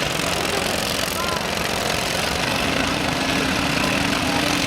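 Demolition derby engines running with a steady drone, under crowd chatter and shouting.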